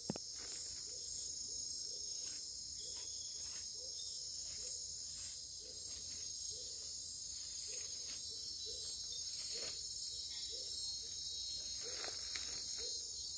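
Night chorus of rainforest insects, crickets and katydids, a steady high-pitched shrill of many overlapping tones. Faint soft knocks repeat about twice a second beneath it.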